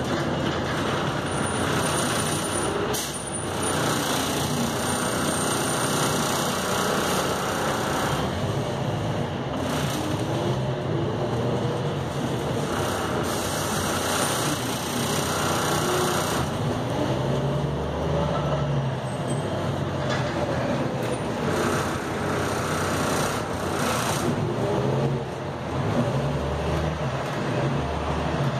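Cabin ride noise of a Neoplan AN460A articulated diesel bus under way: engine and road noise, with a whine that rises and falls several times as the bus speeds up and slows.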